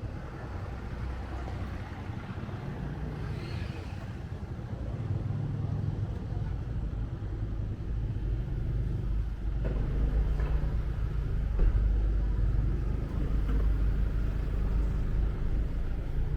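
Motorbike engine and road rumble while riding through city streets, getting louder a little past halfway.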